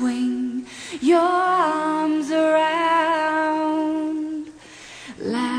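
Music: a slow song with a woman singing long, held notes with vibrato. The voice dips briefly about four and a half seconds in, then starts a new phrase.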